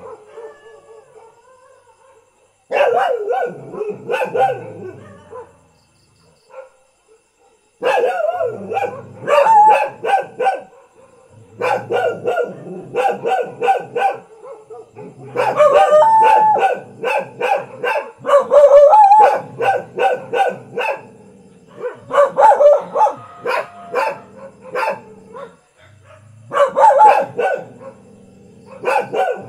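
Ordinary village dogs barking in repeated short volleys, a burst near the start and another a few seconds in, then near-continuous barking from about eight seconds in, broken by brief pauses.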